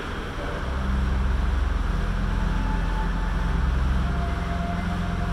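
Air bike fan spinning as it is pedalled hard: a steady low whooshing rush that swells about a second in and then holds.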